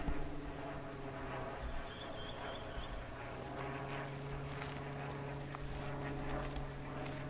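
A steady low hum, as of an engine or machine running, under the soft hoof steps of a horse walking on sand, with a brief high chirping about two seconds in.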